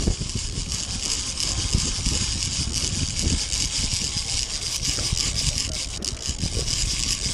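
Wind buffeting the camera's microphone with a steady hiss, over the low rumble of the boat's engine running.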